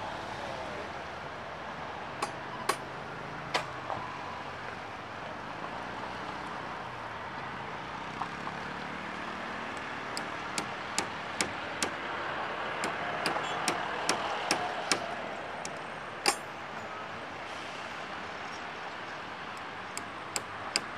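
Steady hum of distant road traffic, with sharp knocks cutting through it: a few scattered ones, then a quick run of about two or three a second about ten seconds in, and more near the end.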